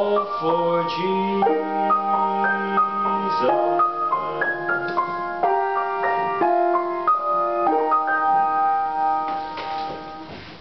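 Upright piano played by hand, a slow melody over held chords with notes struck one after another. The playing stops about nine seconds in.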